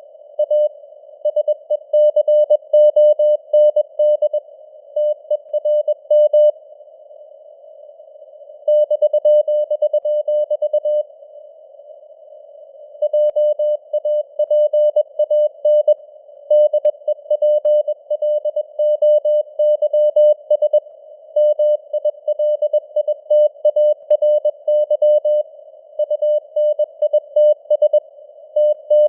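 Morse code (CW) sent at 21 words per minute: a single mid-pitched tone keyed in dots and dashes over a steady hiss of simulated radio noise. The keying pauses twice for about two seconds while the hiss goes on.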